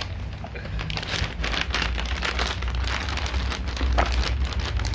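Irregular crinkling and rustling as packaging is handled at a table, over a low steady rumble.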